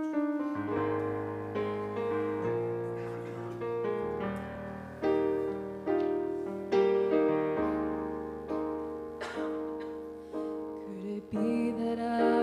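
Piano playing a slow introduction of chords over a bass line, each struck note fading away. Near the end a woman's voice begins singing over it.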